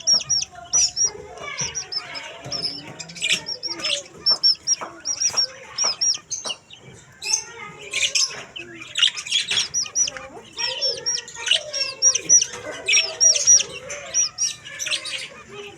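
Budgerigars in an aviary chirping and warbling together: a steady stream of short, high, repeated chirps over scratchy chatter and clicks.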